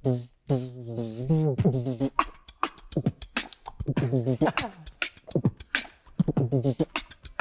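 Beatboxing: a human beatboxer making quick drum-like mouth hits mixed with pitched vocal tones that slide up and down.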